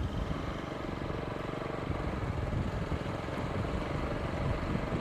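Motorcycle engine running steadily at low speed while riding over a bumpy unpaved road.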